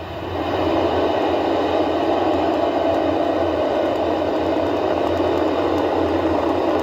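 Falcon 9 rocket's nine Merlin 1D first-stage engines at liftoff: a loud, steady noise that builds over the first second and then holds as the rocket climbs off the pad.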